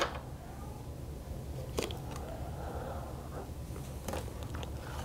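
Quiet room tone with a steady low hum, and a single faint click a little under two seconds in.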